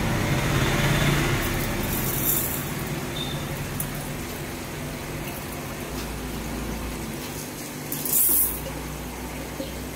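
Dark aquarium gravel poured from a plastic tub into an empty glass fish bowl, rattling against the glass in short pours, once about two seconds in and loudest about eight seconds in. A steady low hum lies underneath.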